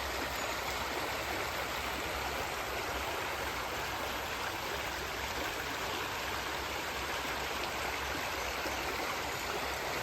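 Flowing stream water, a steady even rush.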